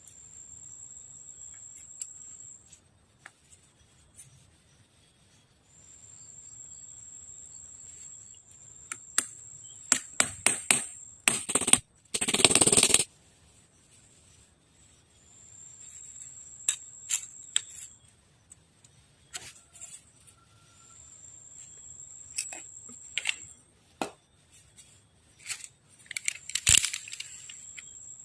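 Insects trilling on one high note in stretches of a few seconds, with pauses between them. Over this come scattered clicks and taps from hand-working small parts, and a loud rasping rush lasting about a second midway.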